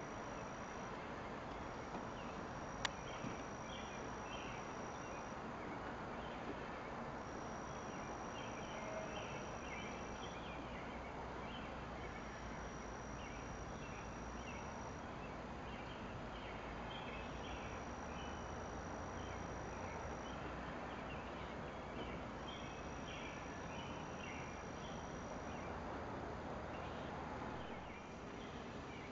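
Outdoor ambience: a high, thin trill lasting about three seconds repeats every five seconds or so, over scattered bird chirps and a steady low rumble. A single sharp click sounds about three seconds in.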